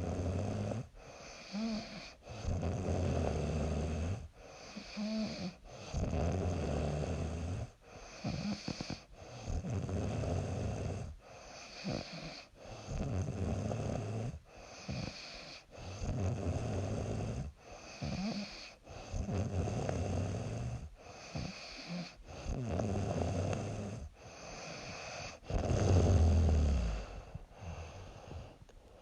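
A young woman snoring in her sleep: a rough snore on the breaths in a steady rhythm, a burst every two seconds or so, with the loudest snore near the end.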